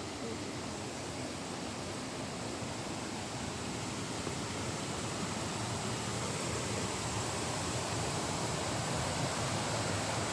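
Steady rush of running water, a waterfall or rapids, an even hiss growing slightly louder near the end.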